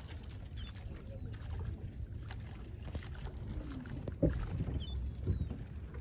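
Wind buffeting the microphone in a steady low rumble, with faint short high bird calls about a second in and again near the end, and a brief knock about four seconds in.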